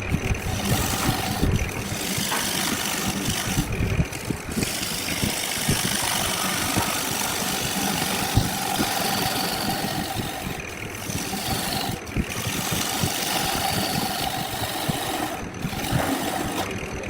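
Wood lathe running while a turning tool cuts the spinning milk flower wood, a steady rushing cutting noise broken by several brief gaps.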